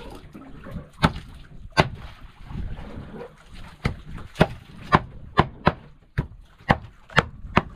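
A large bolo knife chopping a dead eel into bait pieces on wooden deck planks: about eleven sharp blade strikes, a few scattered at first, then about two a second from halfway on.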